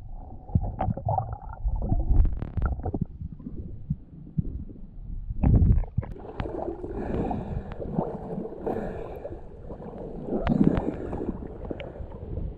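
Muffled underwater sound through a camera housing: water gurgling and rumbling, with scattered knocks and a heavier thump about halfway through.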